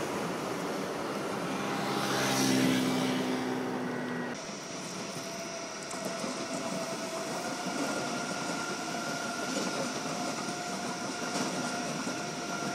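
A red class 425 S-Bahn electric multiple unit passing, with a steady low hum from its drive that swells briefly. About four seconds in the sound cuts to an ICE 3 high-speed train rolling past, wheels on rails with a steady thin whine from its electric drive.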